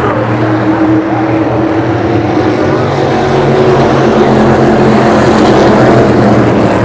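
Pack of SK Light modified race cars running at speed around a short oval, several engines overlapping in a loud, steady drone.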